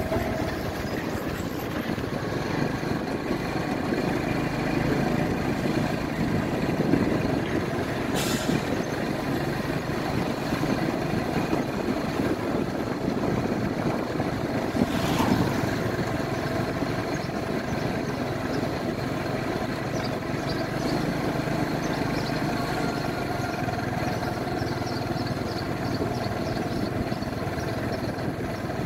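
Motorbike engine running steadily under way, with road and wind noise, heard from the rider's seat. Two brief hisses cut through, about 8 and 15 seconds in.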